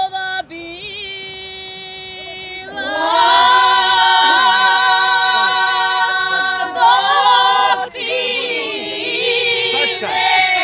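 A group of women singing a traditional folk song unaccompanied. A single voice holds a long note, and the others join in about three seconds in with long, drawn-out, wavering notes. There is a short break for breath near eight seconds before the singing carries on.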